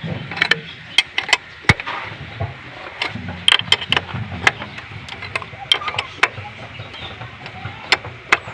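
Irregular sharp clicks and knocks, about twenty in all and unevenly spaced, over a low background hum, as of hand tools and parts being handled on the engine.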